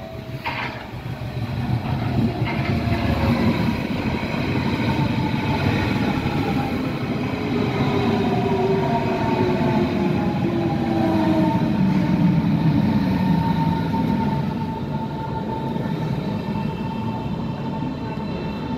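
Berlin S-Bahn electric train passing close by: steady rolling and rail noise with several whining motor tones that slide slowly down in pitch. A sharp click sounds about half a second in.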